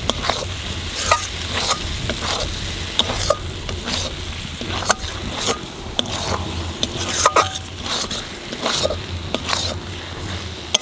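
A spatula stirring and scraping sliced button mushrooms frying in a thick spice masala in a metal kadai. A steady sizzle runs under frequent short scrapes and knocks against the pan.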